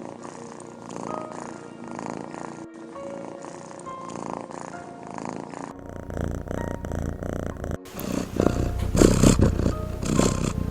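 Cat snoring in a few short clips joined together, with quiet music underneath.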